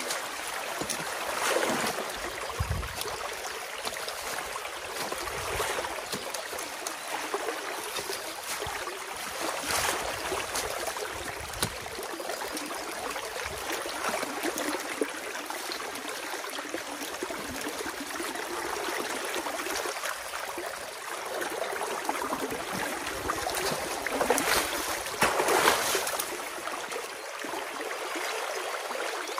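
Water rushing and gurgling through a breach in a beaver dam, a steady churning flow that swells louder a few times.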